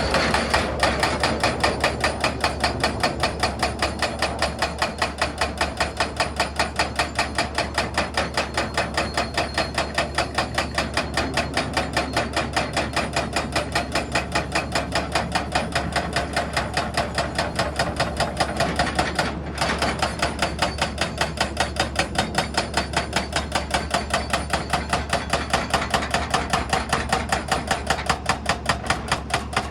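Excavator-mounted hydraulic breaker hammering rock in rapid, even blows over the machine's steady engine hum, stopping briefly about two-thirds of the way through.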